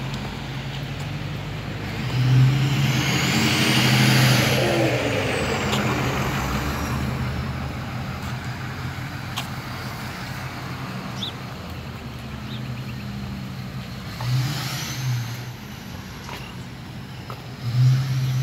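Street traffic: a motor vehicle passes close, swelling from about two seconds in to its loudest near four seconds, with a high tone that rises and then falls in pitch as it goes by. A low steady engine hum runs underneath, and another vehicle goes by about fourteen seconds in.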